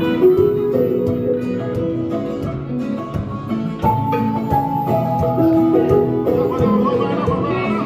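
Music led by plucked strings such as guitar, playing a melody with held notes.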